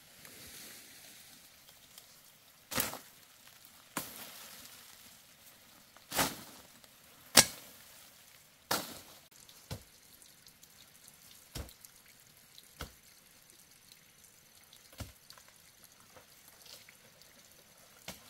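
A series of about ten sharp, uneven clicks or knocks, one every second or two, the loudest about seven seconds in.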